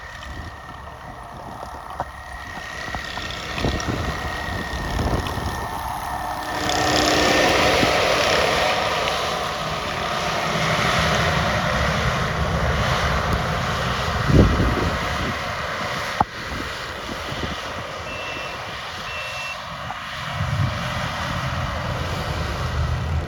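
Snowplow trucks working in the snow: a heavy truck engine rumbles throughout, with a reversing beeper sounding during the first six seconds or so. About six seconds in, a broad rushing noise swells up and carries on over the engine.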